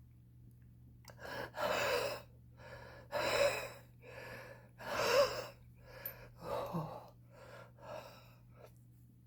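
A smoker's laboured, wheezing breathing: a run of gasping breaths, the four loudest about a second and a half apart, tailing off into smaller breaths near the end.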